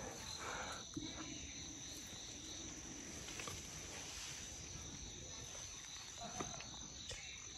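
Insects chirring steadily in the vegetation, a constant high-pitched buzz, with a few faint soft knocks.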